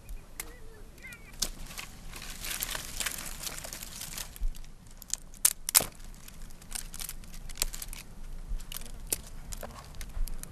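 Dry scrub rustling and twigs snapping as branches are broken and pulled from a bush, with a cluster of sharp cracks a little past halfway.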